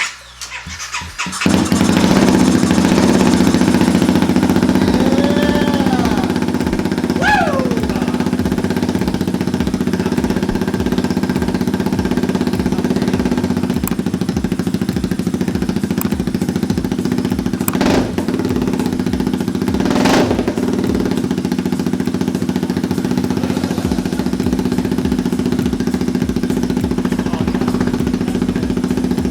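The CBR250 engine swapped into a Honda Grom fires up about a second and a half in and then runs steadily. It runs now that the fuel pump, the fault that kept it from starting, has been replaced.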